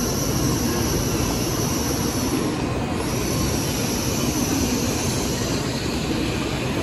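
Shinkansen bullet train moving alongside the platform: a loud, steady rumble of wheels on rail.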